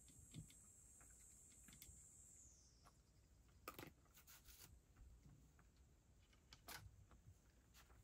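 Domestic cat eating from a shallow dish, faint: a scattering of short crisp chewing crunches, a cluster near the middle and another near the end.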